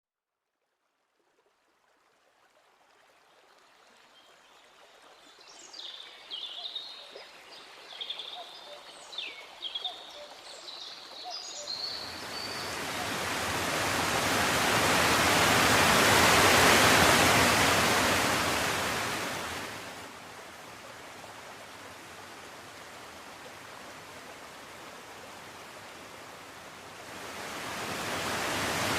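Outdoor ambience fading in: birds chirping for several seconds, then a long rushing swell of surf that builds, falls back to a steady rush, and starts building again near the end.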